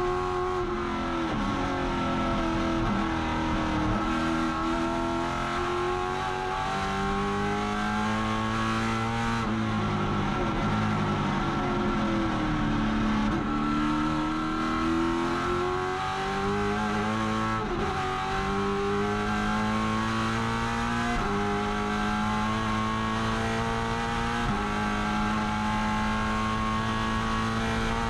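Holden Commodore race car engine at full racing load, heard from inside the stripped cockpit. The pitch climbs hard through the gears and drops sharply at each upshift. Around ten seconds in it falls away with quick blips as the car brakes and downshifts for a corner, then climbs again.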